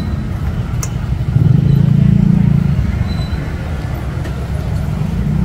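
Low engine rumble of street traffic, a motor vehicle running close by and swelling louder for about a second and a half from a little over a second in. A single sharp click about a second in.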